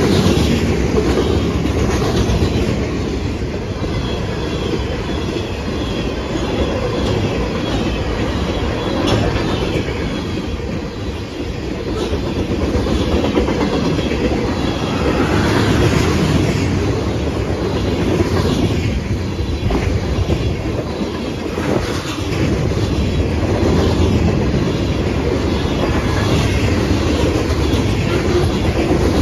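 Freight cars of a mixed freight train, tank cars and covered hoppers, rolling past close by: a loud, steady rumble with the wheels clattering over the rail joints.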